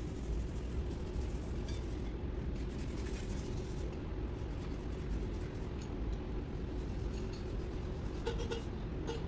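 Steady low hum with scattered light clicks of hand tools working on top of a diesel engine; a few short, higher-pitched sounds come in near the end.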